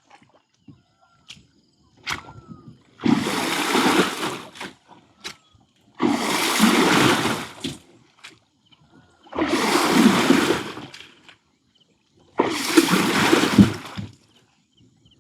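Water splashing hard four times, about three seconds apart, each splash lasting over a second, with small knocks in between. The splashes come from fishermen beating the water's surface to drive fish into the net.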